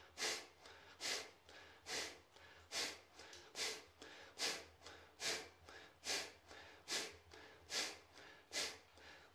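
A man's sharp, forceful exhalations through the nose, each pushed out by pulling the stomach in, repeated in an even rhythm: about eleven puffs, a little under one a second. This is a pumping breathing exercise from Kalaripayattu.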